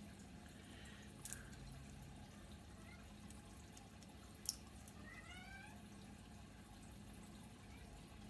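Near-silent room tone with a few faint clicks from the plastic parts of a Bakugan figure being handled and folded, the sharpest about four and a half seconds in, and a short rising squeak a little after.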